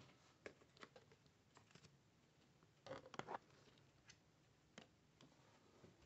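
Near silence with a few faint scattered clicks, and a short cluster of small taps about three seconds in.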